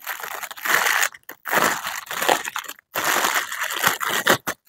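Plastic packaging crinkling and crackling in irregular handfuls as a small item is unwrapped, with brief pauses between bursts.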